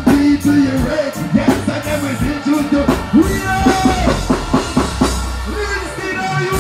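Live reggae music over the stage PA: a male artist singing into a microphone over the band's drums and bass.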